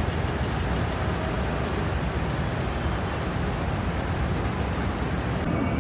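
Steady city street ambience dominated by traffic noise, a continuous wash of passing vehicles.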